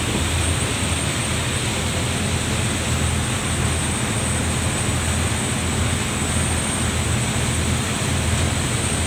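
Fast passenger ferry running at speed: a steady low engine drone under the continuous rush of water churning in its wake.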